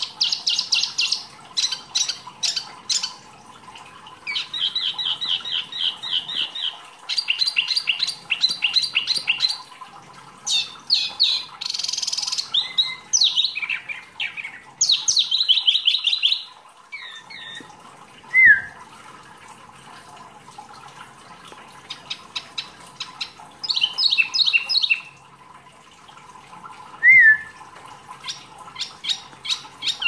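Caged wambi mini songbird singing: bursts of rapid, high chattering trills and chirps with short pauses between phrases, and a couple of single short falling notes in the second half.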